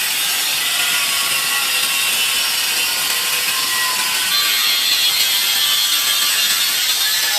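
Electric tile-cutting saw running and cutting through tile, a steady high hiss that grows brighter about four seconds in.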